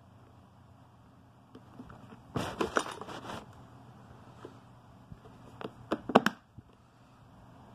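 Hard plastic clicking and rattling from a Tonka Side Loader toy garbage truck's lift arm and bin being worked by hand: a burst of rattles about two and a half seconds in as the bin goes up, then a few sharp clacks around six seconds in, the loudest of all, as it comes back down.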